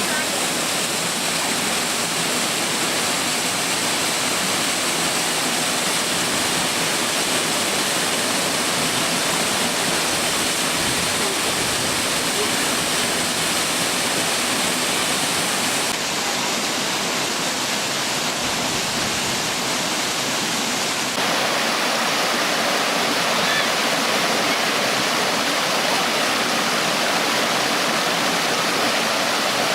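Waterfall: a steady rush of falling water. Its tone shifts abruptly about 16 seconds in and again about 21 seconds in, and it is a little louder after the second shift.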